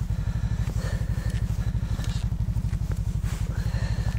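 An engine idling steadily nearby, a low, even, rapid pulse.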